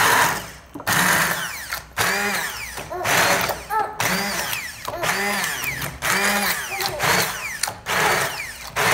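Hand-held immersion blender running in short bursts about once a second, its motor whirring up and dropping back each time as it churns thick cooked tomato sauce: a brief coarse blend, not down to a smooth paste.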